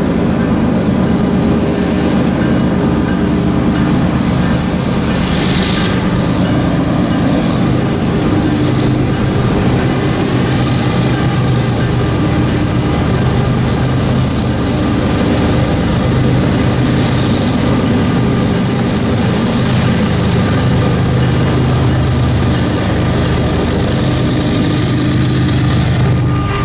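CSX diesel locomotives working hard under load, hauling a long loaded coal train upgrade. The engine drone is loud and steady throughout.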